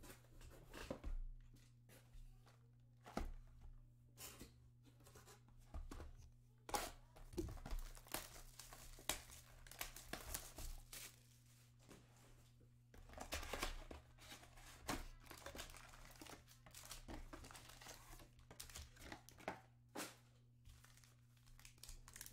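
Cardboard hobby box of 2020 Panini Select UEFA Euro soccer cards being handled and torn open, and its foil card packs crinkling as they are pulled out and stacked: irregular rustles, tears and light knocks over a low steady hum.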